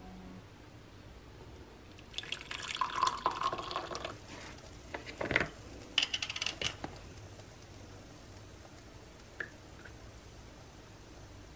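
Hot coffee poured from a glass drip-coffee-maker carafe into a ceramic mug, lasting about two seconds. A few short clinks and knocks follow as the carafe goes back onto the machine.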